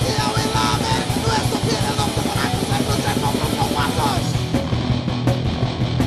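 Raw hardcore punk studio recording: fast distorted guitar, bass and pounding drums with shouted vocals that drop out about four seconds in.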